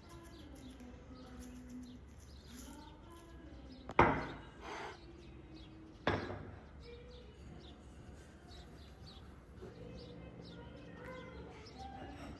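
Two sharp knocks, about two seconds apart, over faint bird chirping in the background.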